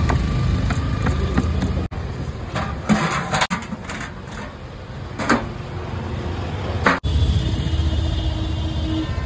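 A steady low engine rumble, broken off at several sharp cuts, with a few short taps in a quieter middle stretch.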